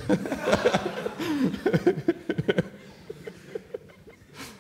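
Laughter, loudest over the first two and a half seconds and then tailing off.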